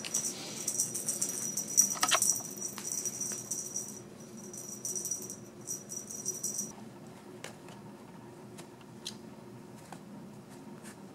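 A feather wand cat toy rattling and jingling as it is shaken and swished for a playing kitten, with sharp ticks loudest about two seconds in. The rattle stops about two-thirds of the way through, leaving scattered light taps and scratches as the kitten paws in a cardboard box.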